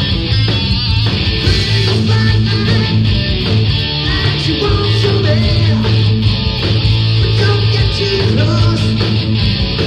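Live rock band playing loud: electric guitar and drums in full flow.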